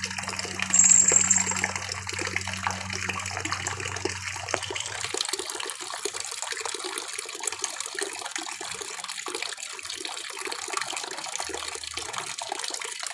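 Thin stream of tap water splashing steadily into a plastic basin. A brief high-pitched sound rises above it about a second in, and a low hum underneath stops about five seconds in.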